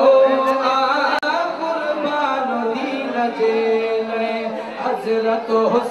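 A man singing a Sindhi naat, drawing out long held notes that bend slowly in pitch.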